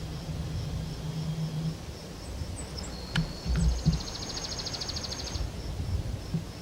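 Rural outdoor ambience: a songbird sings one phrase, a few high chirps and then a fast, even trill lasting about two seconds, starting about three seconds in. Underneath are faint high chirps repeating about three times a second, a steady low rumble with a few thumps, and a low hum that stops in the first two seconds.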